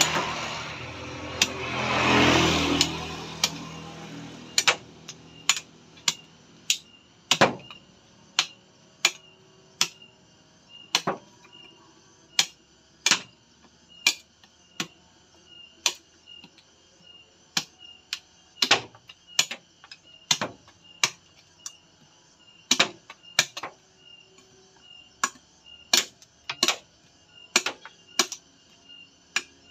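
Machete blade chopping at a hard coconut shell in sharp, separate knocks, about one or two a second at an uneven pace, as the shell is chipped off. A broad rushing noise swells and fades in the first few seconds.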